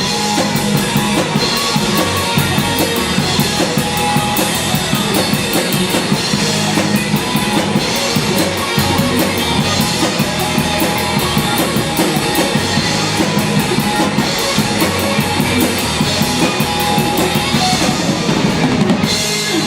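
Live rock band playing loudly with a driving drum kit beat, with no vocals in this stretch.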